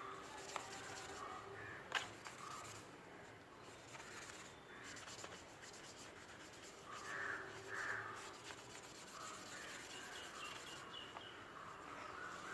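Faint rubbing of a cloth wiping a toothpaste and hair-cream mix off a phone screen, with crows cawing in the distance a few times.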